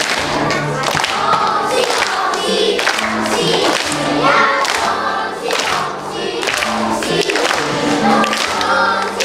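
Children's choir singing a song in unison, with small xylophones struck by mallets in a steady beat underneath.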